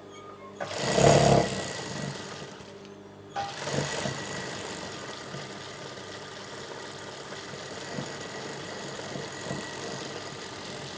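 Industrial sewing machine: a brief loud run about a second in, then its motor running with a steady hum.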